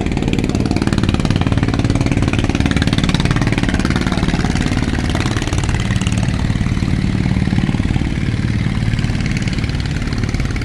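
Ro-ro ferry's engines running steadily at berth: a deep, even engine hum with a rushing noise over it.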